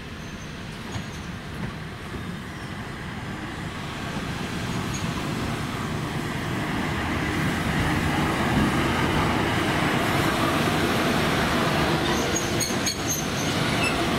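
EP2K electric locomotive running light at low speed, approaching and passing close by, its running noise growing steadily louder. Near the end, a few clicks and brief high squeals come from the wheels on the rails.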